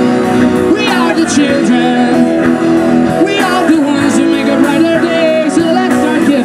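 A song played with guitar accompaniment, a voice singing the melody over it.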